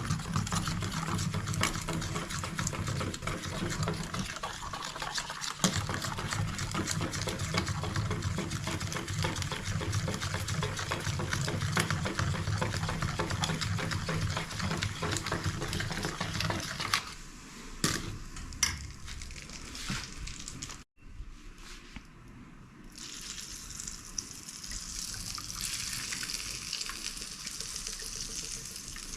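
Water running, a dense steady rush that drops away about two-thirds of the way through and gives way to a quieter, higher hiss of water.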